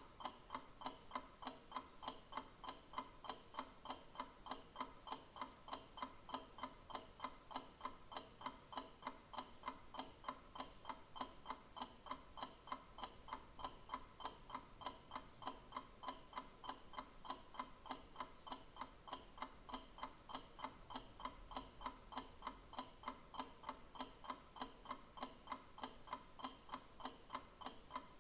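A clock ticking steadily, with sharp, evenly spaced ticks several times a second.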